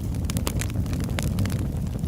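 Log fire burning in a fireplace: a steady low rumble of the flames with frequent small, sharp crackles and pops.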